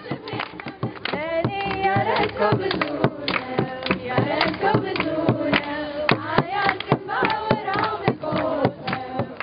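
Music with singing over a busy beat of sharp hand-struck hits.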